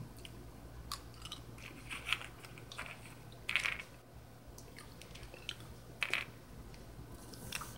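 A person chewing and crunching small candies, with a few crisp crunches scattered through, over a steady low hum.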